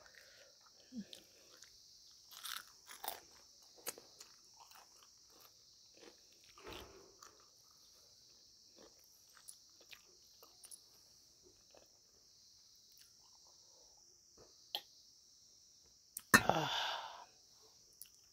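Quiet, close-up chewing and crunching of crisp fried dumplings, with scattered small mouth clicks. A brief, much louder sound comes near the end.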